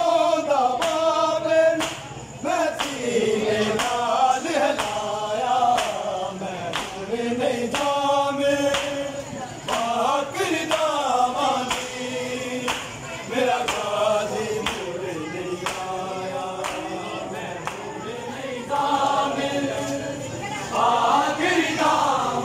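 A group of men chanting a noha, a Shia mourning lament, together in unison, with repeated sharp slaps of hands on bare chests (matam) cutting through the singing.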